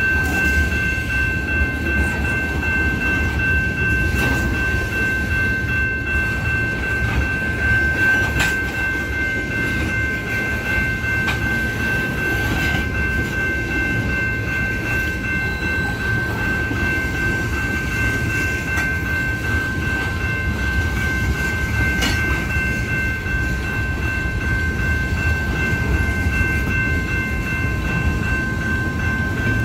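Union Pacific freight train rolling along, its railcars making a steady low rumble with a steady high-pitched ring over it and a couple of sharp clanks.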